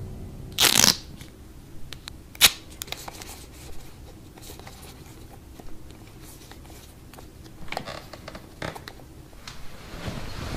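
Quiet room broken by a short rustling burst near the start, a sharp click a couple of seconds in, and a few lighter clicks later, typical of a wall light switch being flicked, with soft rustles of clothing and bedding near the end.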